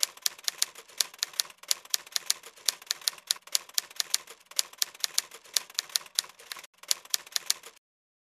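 Typewriter sound effect: a run of irregular key clacks, the loudest about three to four a second over a lighter clatter, with a short break before it stops near the end.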